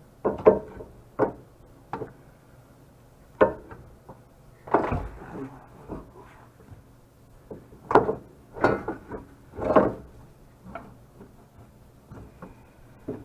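Irregular knocks and clunks, about a dozen sharp hits with pauses between, as a steering rack and pinion is worked into place under a 1997 Honda CR-V.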